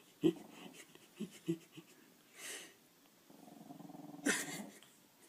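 Small black curly-coated dog growling low as a face is brought close to it: a few short grunting growls in the first two seconds, then a longer low growl from about three and a half seconds in, with a short sharp sound just after four seconds in.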